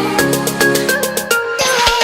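Electronic background music with a steady beat, rising in a short build-up near the end.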